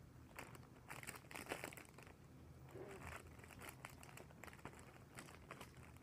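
Faint, irregular crunching and crinkling of a person chewing a macaron, coming in a few short clusters: about half a second in, around three seconds in, and near five seconds.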